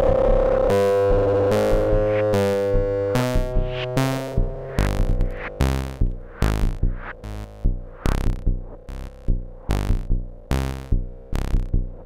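Eurorack modular synthesizer playing a sequenced electronic pattern: a held drone note breaks up less than a second in into a run of short, plucked-sounding pitched notes that decay quickly, each with a deep low thump, about two to three a second.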